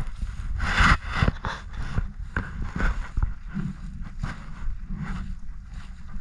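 Footsteps swishing through grass and dry leaves at a walking pace, about two steps a second, over a low rumble of wind on the microphone.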